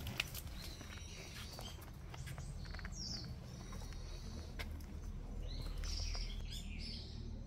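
Woodland birds giving several short chirping calls, some sweeping down in pitch, over scattered footsteps on a leaf-strewn dirt path and a steady low rumble.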